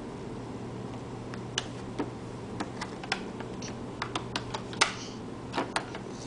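Pen of a Fisher-Price Little People doodle board tapping and scraping on its plastic drawing screen. It makes a run of irregular sharp clicks that begins about a second and a half in and comes thickest near the end.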